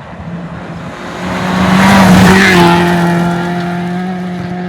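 A 2WD rally car passing at speed: the engine note grows louder, peaks about two seconds in, then drops in pitch and fades as the car goes by.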